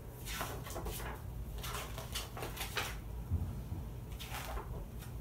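Pages of a hardcover book being leafed through: about six short rustles of paper, over a low steady hum.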